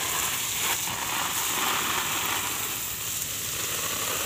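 Garden hose spraying a stream of water onto banana plants and leafy ground cover, a steady hiss.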